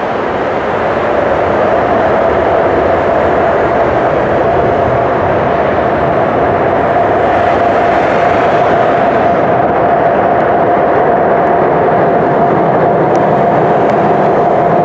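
Emirates Airbus A380's four jet engines running loud and steady as the airliner decelerates on the runway after touchdown, a constant whine over a broad rushing roar that swells over the first couple of seconds and then holds.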